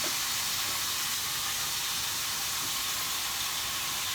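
Stir-fry sizzling steadily in hot oil, a constant high hiss.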